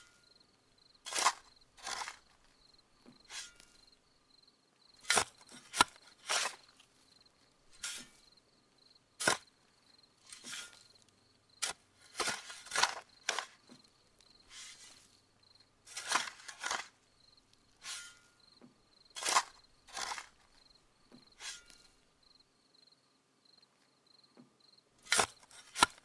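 Scattered sharp clicks and snaps, irregularly spaced about one every second or so, over a faint steady high-pitched trill like an insect's.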